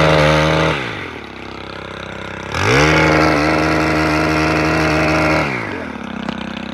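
Gas-powered pole saw engine revved to full speed twice while its chain cuts overhead hazelnut branches: a short burst at the start, then a longer run of about three seconds from about two and a half seconds in. The engine falls back to idle between and after the bursts.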